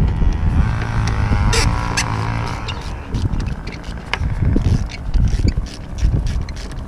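Hand tools working a 10 mm bolt in a car's engine bay: a whirring for the first two seconds or so, then a run of quick clicks and light knocks.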